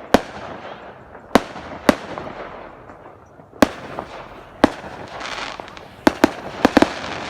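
Fireworks going off all around: sharp bangs at irregular intervals, several in quick succession near the end, with crackling in between.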